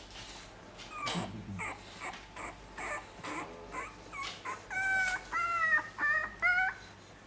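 Seventeen-day-old puppies whimpering and squealing: a run of short, high-pitched cries starting about a second in, with the loudest and longest whines near the end.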